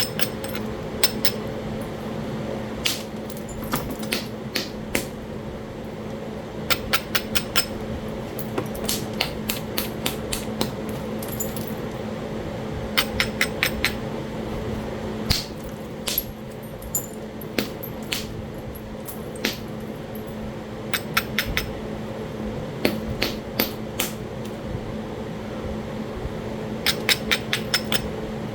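Flintknapping Talahata quartzite: sharp stone-on-stone clicks. Some are single strikes and some come in quick runs of light taps, as the edge and platforms are worked.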